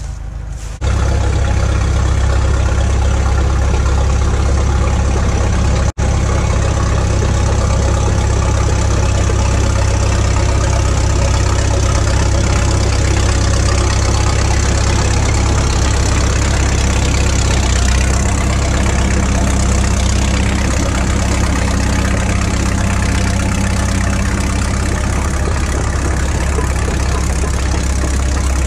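Caterpillar D4 7U crawler dozer's diesel engine running steadily. It cuts in abruptly about a second in and has a split-second dropout about six seconds in.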